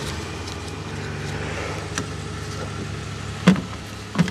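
A car engine idling steadily, with a light click about two seconds in and two duller knocks near the end.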